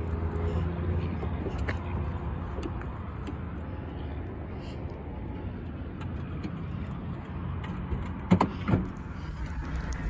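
A car door clunking twice a little after eight seconds in, opened and shut as someone gets in, over a steady low rumble.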